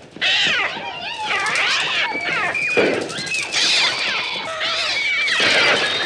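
Film soundtrack of a gull attack: many shrill, overlapping gull cries that swoop up and down in pitch, in a dense, unbroken din. The cries are electronically treated bird sounds made on the Mixtur-Trautonium.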